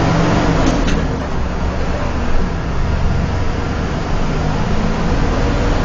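Bus's diesel engine running steadily under way, with road and tyre noise, heard from inside the driver's cab.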